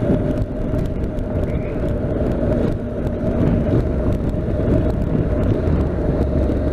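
Honda NC750X motorcycle's parallel-twin engine running steadily at cruising speed, with heavy wind and road noise on the microphone.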